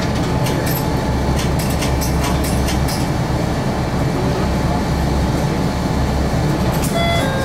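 Diesel railcar's engine running with a steady low rumble, with scattered sharp clicks in the first few seconds and a few short electronic chime tones near the end.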